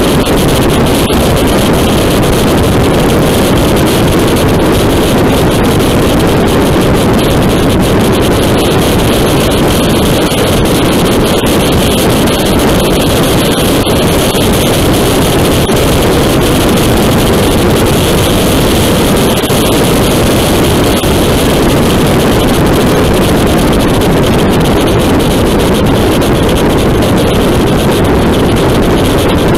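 Steady rush of wind over the microphone mixed with the drone of a Yamaha MT-09 Tracer motorcycle's three-cylinder engine cruising at highway speed, around 130 to 145 km/h.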